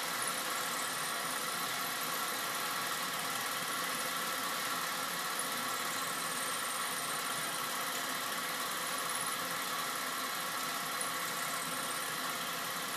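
Small Green Steam Engine running steadily while driving a generator, with an even, unchanging mechanical hum.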